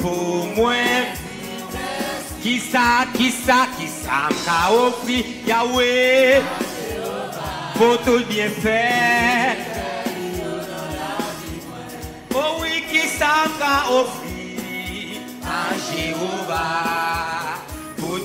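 Live gospel music: a man singing with heavy vibrato over a church band of drum kit and electric bass guitar.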